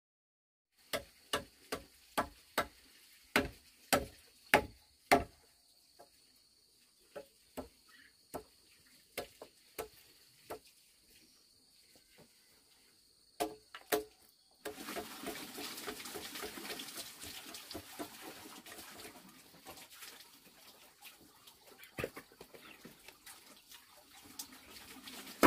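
Hammer blows on wood: sharp knocks about two a second, then slower and scattered, with a steady high whine behind them. Around the middle the whine stops and a steady rustling noise takes over, broken by a few more knocks.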